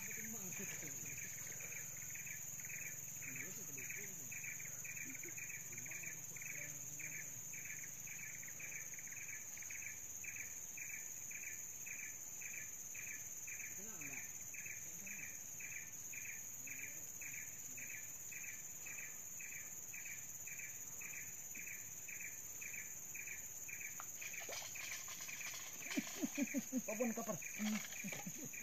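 Insects droning steadily at a high pitch, with a separate insect call pulsing about twice a second. A burst of louder, irregular sounds comes in near the end.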